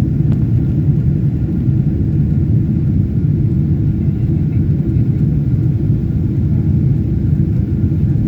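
Steady low rumble of a jet airliner in flight or on its takeoff run, heard from inside the passenger cabin: engine and airflow noise.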